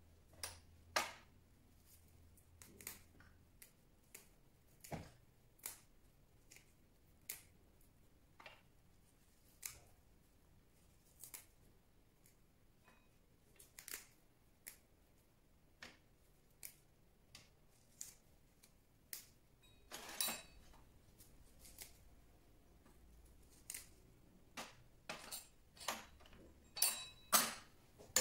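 Faint, irregular small clicks and snaps from fresh basil being picked off its stems by hand, with light taps of small metal bowls on the work table. The clicks come about once a second and grow quicker and louder near the end.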